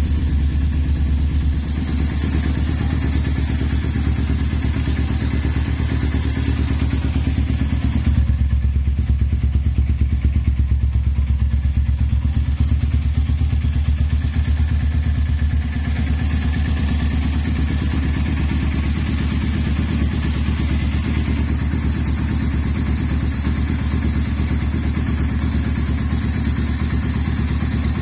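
Megelli 250R motorcycle's single-cylinder engine idling steadily through its exhaust, getting a little louder for several seconds in the middle.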